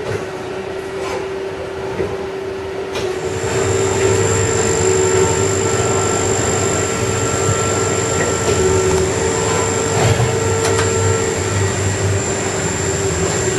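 CNC lathe running through its machining cycle: steady machine noise with a high whine that comes in about three seconds in, and a few sharp clicks.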